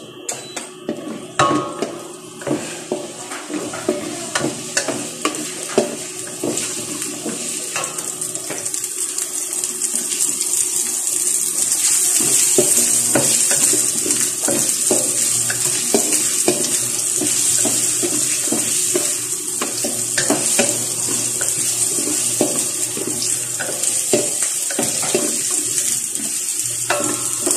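Minced garlic sizzling in hot oil in a stainless steel pot, with a wooden spatula stirring and scraping against the metal in frequent short clicks. The sizzle swells over the first ten seconds or so, then holds steady.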